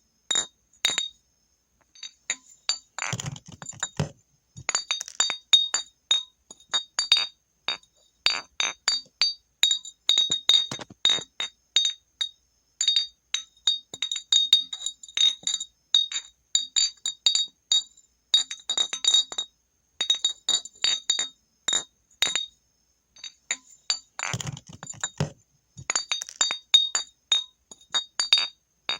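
Glass bottle being clinked and tapped over and over, each strike ringing with a clear high-pitched tone. Twice the sound turns into a heavier, lower clatter of glass for about a second: a few seconds in and about three-quarters of the way through.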